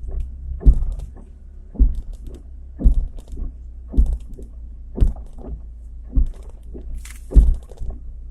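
Chevrolet Niva drivetrain knocking while reversing: a heavy knock about once a second over a low engine rumble. These are the transmission knocks the owner is demonstrating and thinks most likely come from the front axle gearbox.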